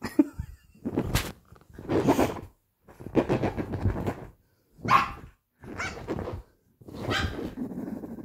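French bulldog puppy barking and growling in play, a string of about seven short gruff barks roughly one a second.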